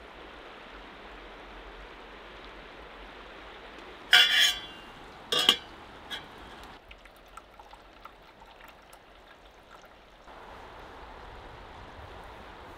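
Steady rush of flowing water. About four and five seconds in come two sharp metallic clanks of a stainless steel kettle lid, each ringing briefly, followed by a few light clinks.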